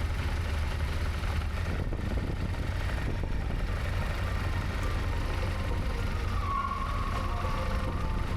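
Steady low engine rumble, with a brief high steady tone a little past the middle.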